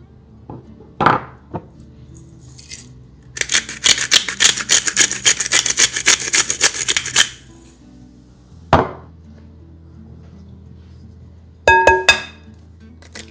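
A pepper mill grinding black pepper for about four seconds, a rapid gritty crunching, over soft background music. Near the end comes a short ringing clink.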